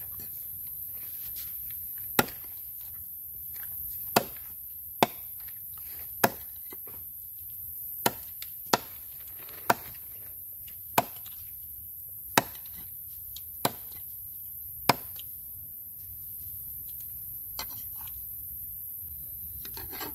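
Food being chopped with a knife in slow single strokes: about eleven sharp chops, roughly one a second, the last about three-quarters of the way through.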